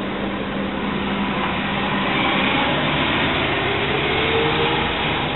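Articulated city bus's diesel engine pulling away from a stop, with a rising whine coming in about halfway through as it gathers speed.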